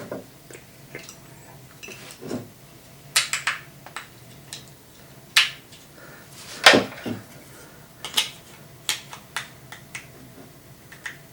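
Hard objects being handled: scattered, irregular clicks and light knocks of small hard parts being picked up, set down and fitted together.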